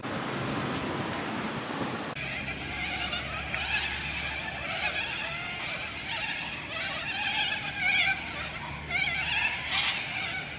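Steady street traffic rush for about two seconds, then a dense chatter of small birds chirping and twittering, with louder bursts of chirps now and then.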